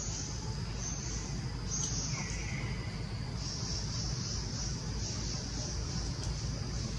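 Insects buzzing steadily in a high, hissing band that breaks off briefly now and then, over a low outdoor rumble. One short, slightly falling call comes about two seconds in.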